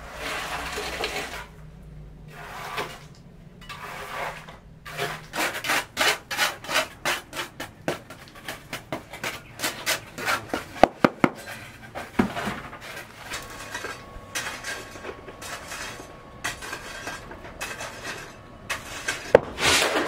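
Quick repeated scraping or rubbing strokes on a hard surface, a few a second, with a few sharper knocks about halfway through.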